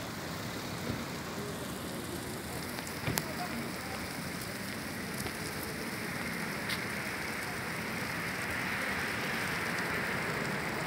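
Burning street lamp pole shooting a tall jet of flame and sparks: a steady hiss and crackle, with a few sharp pops.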